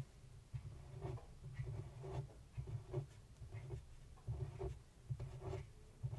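Fine-tipped pen scratching on paper in short strokes, about two a second, each with a soft low tap, picked up very close to the microphone.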